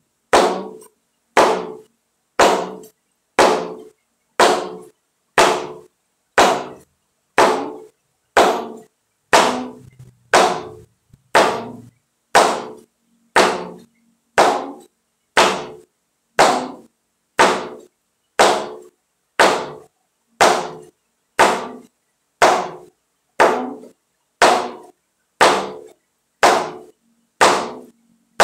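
Flamenco shoe stamping on a wooden practice board in slow, even single strikes, about one a second, each ringing briefly.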